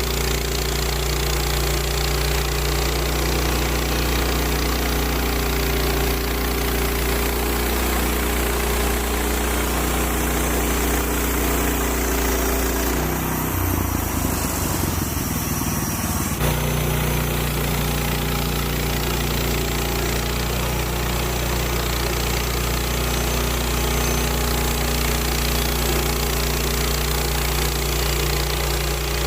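Woodland Mills HM130 bandsaw mill's engine running steadily under load while sawing a red oak log. Its note breaks up for a few seconds about halfway through, then settles back.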